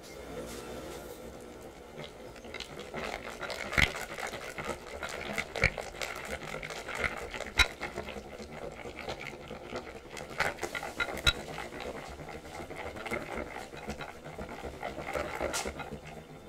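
Metal balloon whisk stirring a thick creamy cheesecake batter in a glass bowl: a soft wet swishing, with now and then a sharp clink as the wires strike the glass.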